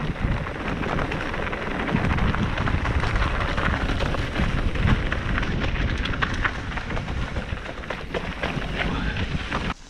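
Mountain bike descending a rocky singletrack: tyres crunching and rattling over loose stones and dry leaves, with many sharp clicks and knocks over a heavy low rumble. Near the end it drops away briefly.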